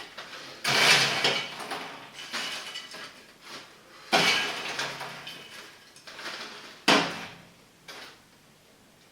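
Clatter of hard kitchen items being handled: three sharp knocks, about a second, four seconds and seven seconds in, each trailing off in a rattle, with a softer knock just after the last.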